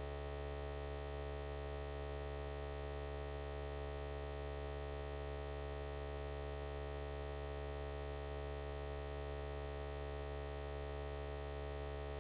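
Steady electrical hum in the recording, a constant low drone with many fixed overtones and no change throughout.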